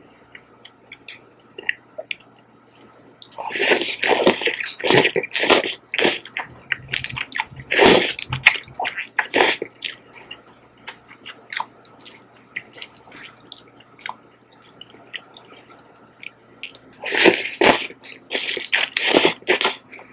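Close-up slurping and chewing of saucy jjajang noodles: loud wet slurps in clusters, about three to six seconds in, around eight to nine seconds, and again near the end, with quieter chewing between.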